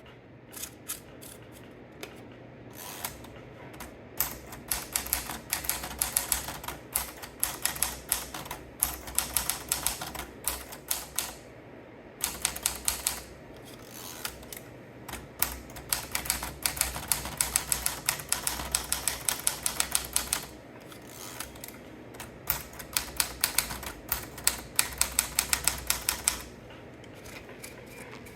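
Smith-Corona Skyriter portable manual typewriter being typed on: quick runs of key strikes in several bursts, with short pauses between them, stopping a couple of seconds before the end.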